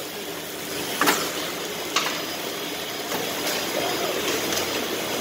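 Ice cream packaging-line machinery and conveyor running steadily, with a sharp click or clack about every second.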